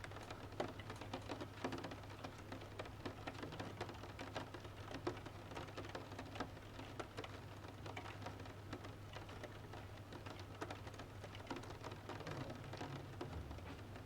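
Wood fire crackling in a wood-burning stove, with frequent small sharp pops, over steady rain falling outside a window. A low steady hum sits underneath.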